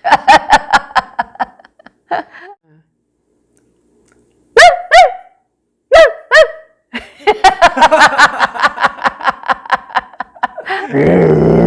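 Laughter in quick repeated pulses at the start and again through the second half. In the quiet middle come two pairs of short vocal calls that rise and fall in pitch: a person imitating an animal sound. A louder, rougher vocal sound begins near the end.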